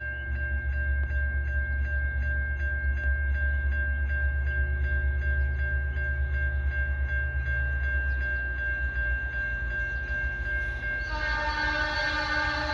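Diesel locomotives of a freight train, EMD SD60 units, running with a heavy low rumble, while a grade-crossing bell rings steadily at about three strikes a second. Near the end the locomotive horn starts to sound a multi-tone chord.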